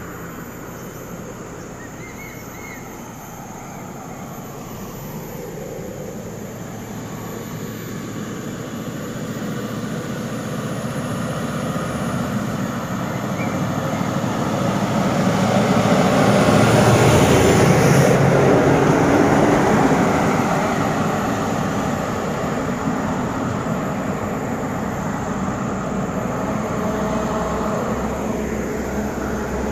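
Scania R580 tractor unit's V8 diesel and the tyres of its multi-axle trailer approaching and driving past. The sound builds steadily to its loudest about 17 seconds in, then fades as the rig goes away.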